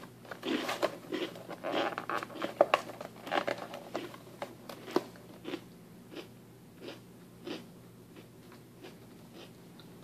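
Crunchy garlic-and-parmesan baguette-bite crackers being chewed close to the microphone: dense, loud crunching for the first few seconds, thinning to occasional softer crunches.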